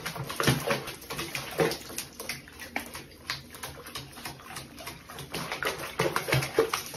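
Water running into a plastic basin and splashing around a cat sitting in a soapy bath, with irregular splashes and drips.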